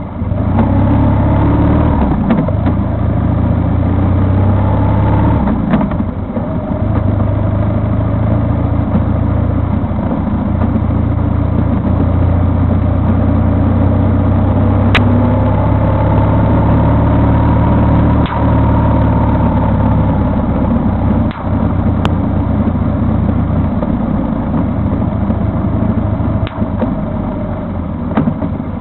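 Vehicle engine running while under way, a steady low tone whose pitch rises and falls slowly with speed, with a few brief clicks.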